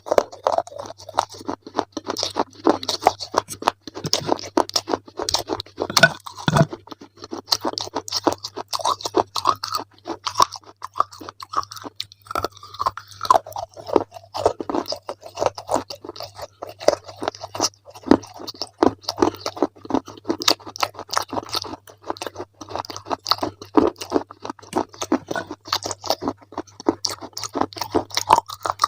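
Close-up chewing and crunching of something crisp, with rapid irregular crunches several times a second, over a faint steady low hum.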